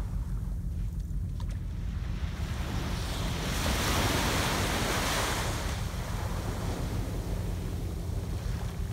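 Small shore waves lapping on a sandy beach. One breaks and washes up the sand, a rush of surf that builds about three seconds in and fades by about six, over a steady low rumble of wind on the microphone.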